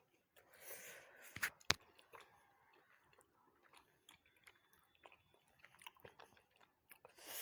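A person chewing quietly, with small wet mouth clicks throughout and a sharp click about a second and a half in. A breathy rush of air comes near the start and again at the end.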